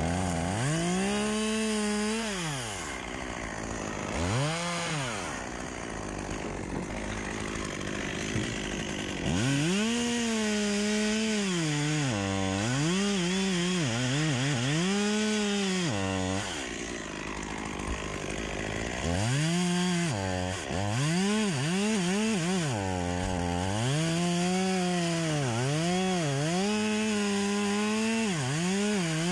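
Two-stroke Stihl chainsaw revved twice and let fall back to idle, then held at high revs with repeated short dips in pitch as it cuts into black poplar wood, dropping briefly to idle once before cutting again.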